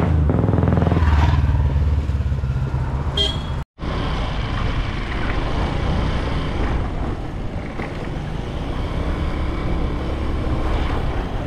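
Small scooter engine running while riding, with wind and road noise on the microphone. A short high-pitched tone sounds about three seconds in, and the whole sound cuts out for an instant just before four seconds.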